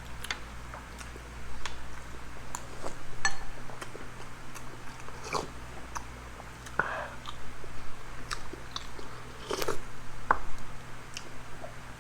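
Close-miked eating sounds: chewing and biting, with irregular small clicks and crunches.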